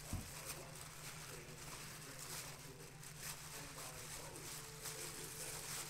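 Quiet room tone with a steady low hum and a few faint ticks.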